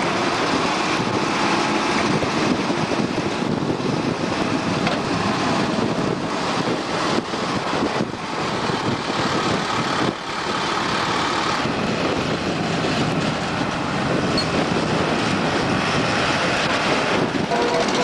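Potato harvester and the tractor pulling it running steadily, with potatoes tumbling off the discharge elevator into a trailer bin lined with a flexible hopper, making a dense, continuous rattling clatter.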